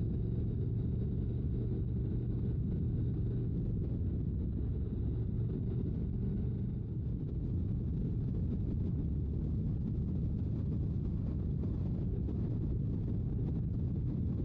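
Honda NC750X DCT's parallel-twin engine running at road speed, a steady low drone mixed with wind rush on the microphone. The engine tone eases about halfway through, leaving mostly wind rush.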